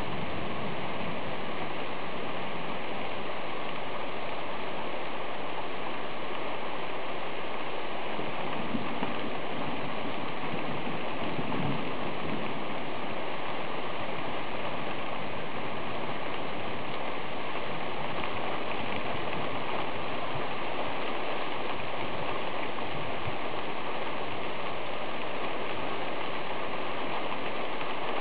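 Rain falling steadily in a thunderstorm, an even hiss that does not let up.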